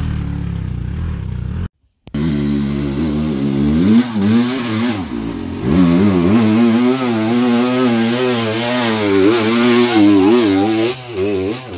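Enduro dirt bike engine revving hard, its pitch rising and falling over and over as the rider works the throttle up the rutted trail and passes close by. Before this, a steadier low engine note breaks off briefly about two seconds in.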